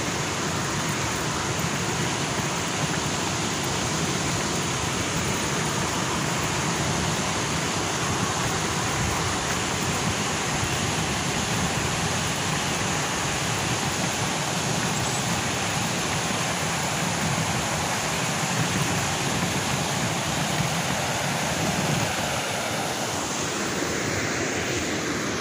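Water pouring over a low river weir: a steady rushing.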